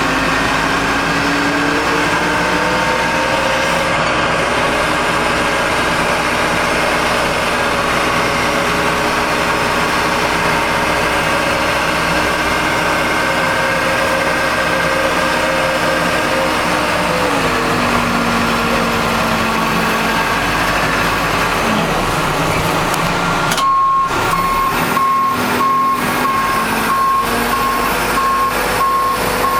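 Backhoe's diesel engine running under load, its pitch rising in the first seconds and dropping back about two-thirds of the way through. Near the end its backup alarm starts a steady, repeated beeping as the machine reverses.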